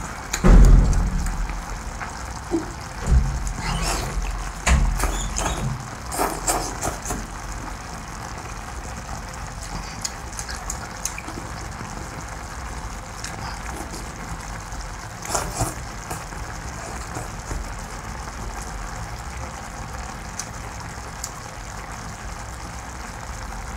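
Close-up mouth sounds of eating a large scallop from its shell: slurping and chewing. There are a few dull knocks and clicks in the first few seconds and again about fifteen seconds in, over a steady hiss.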